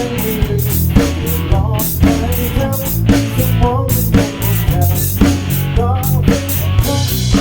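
Rock band playing an instrumental passage: a drum kit keeps a steady beat under guitar and bass, with a melody line weaving over the top.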